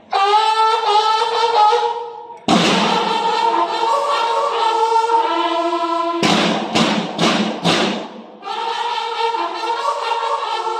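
Banda de guerra bugles playing a call together in held, steady notes, with a run of about six loud drum strokes about six seconds in before the bugles come back.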